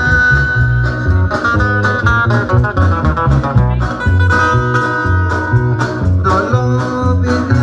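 Loud dance music with a lead guitar melody over a pulsing bass line and steady drums.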